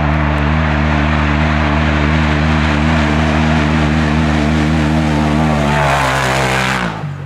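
Polaris RZR side-by-side engine running steadily close by, at an even pitch. Near the end it turns louder and rougher and wavers, then cuts off abruptly.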